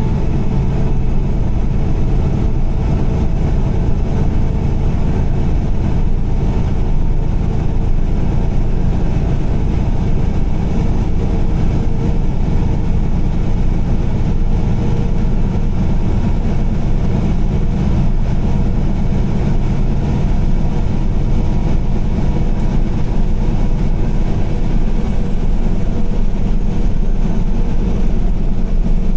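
Car driving on a rain-wet highway: a steady, unchanging low rumble of tyres and engine, with a fainter hiss above it.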